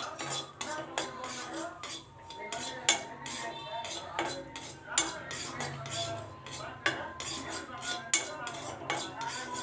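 A metal spoon stirring a pan of vermicelli cooking in milk, scraping and clinking against the pan over and over. There are sharper knocks about five seconds in and again about eight seconds in.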